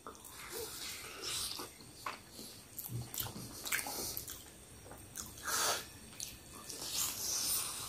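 A person eating peri peri chicken close to the microphone: soft chewing with scattered wet mouth clicks and smacks, a few a little louder than the rest.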